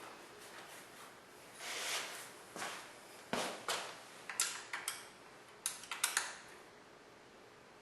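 Hand tools and small motorcycle parts being handled: a couple of soft rustles, then from about three seconds in a run of irregular sharp clicks and knocks, metal and hard plastic tapping together.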